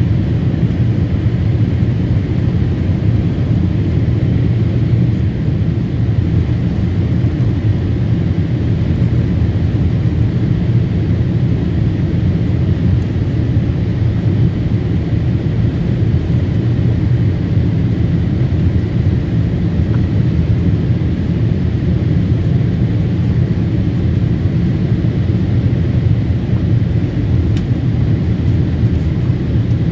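Steady low roar of a Boeing 787 Dreamliner's cabin in flight shortly after takeoff: engine and airflow noise heard from inside the passenger cabin, with no change in level.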